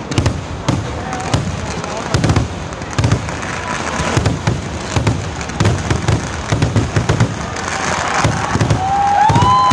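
Festival fireworks display: a rapid, unbroken barrage of loud bangs and crackle, with deep booms going off about twice a second.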